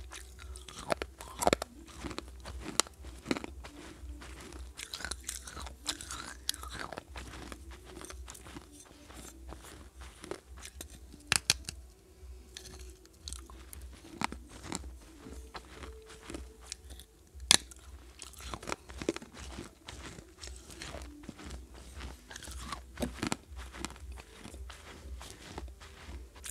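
Pieces of a clay pot bitten and chewed close to a handheld microphone: irregular sharp crunches and gritty chewing, the loudest snap about 17 seconds in. A steady low hum runs underneath.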